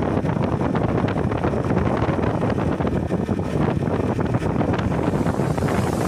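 Wind rushing and buffeting on the microphone of a moving scooter, loud and steady, with the ride's engine and road noise underneath.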